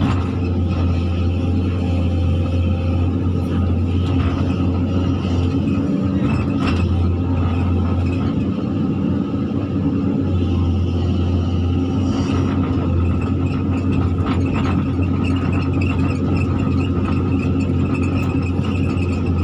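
Zoomlion hydraulic excavator's diesel engine running steadily under working load, heard from inside the cab as the arm and bucket level dirt, with a few brief scrapes and knocks from the bucket against the ground.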